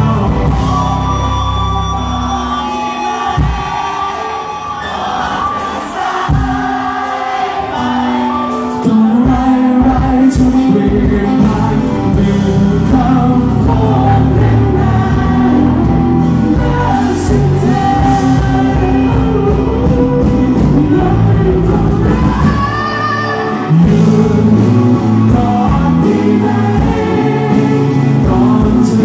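Live band playing a pop-rock song with a male lead singer over drums, bass, electric guitar and keyboards. The band gets louder about nine seconds in and again near the end.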